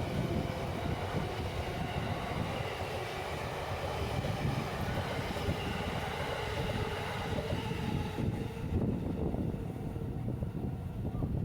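Electric commuter train running past on the tracks at a level crossing: a steady rumble of wheels on rail, with faint high tones above it that fade about eight seconds in.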